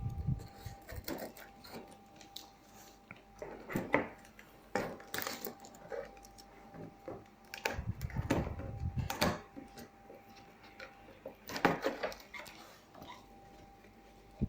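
Cardboard fan box being opened and its packaging handled: irregular knocks, scrapes and rustles of cardboard and parts, in clusters with short pauses between.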